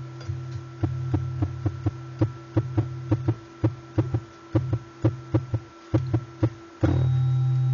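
Tuning fork's low tone picked up by a relay-coil pickup and played through hi-fi speakers: a hum broken by quick finger taps on the tines, about three a second, each a sharp click that chokes the tone. Near the end a firmer strike sets it humming loud and steady.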